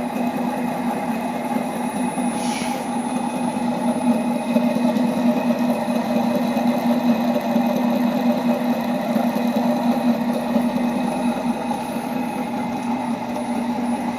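Servo motor running with a steady, rough hum from a failed ball bearing.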